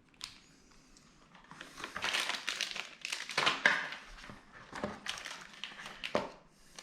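Plastic packaging crinkling and rustling as it is handled, in irregular bursts, with a few small clicks.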